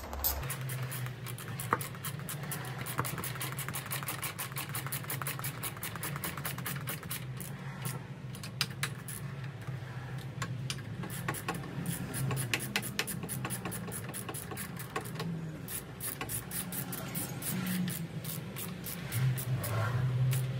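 Hand ratchet clicking in irregular runs while bolts are tightened on a motorcycle's top clamp, over a steady low hum that grows louder near the end.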